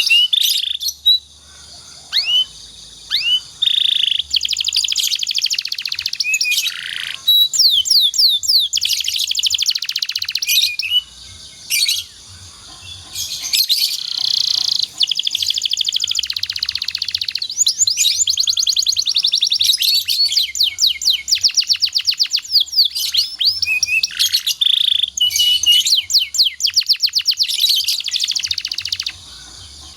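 Domestic canary singing a long, fast song of rapid trills, rolls and sweeping chirps, broken by a few short pauses.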